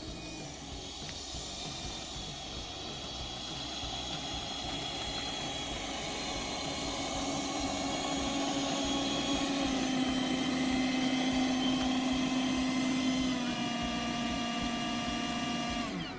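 The Freewing Avanti S's 80mm electric ducted fan is running on the ground with a steady whine and rush of air. It grows louder through the first half, then its pitch steps down a little about three-quarters of the way through as the throttle is eased.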